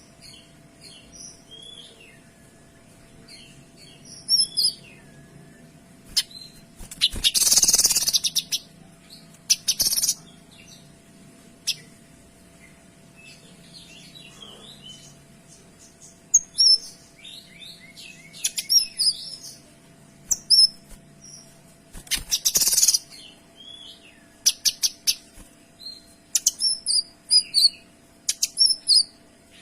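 A kinoy songbird singing a rapid string of short, high chirps and whistled notes. Two loud, harsh bursts stand out, about a quarter of the way in and again about three quarters in. Fast clicking trains come near the end.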